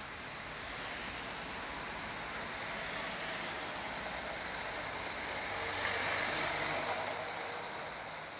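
Street traffic: cars driving past with a steady road noise, one passing closer and louder about six to seven seconds in.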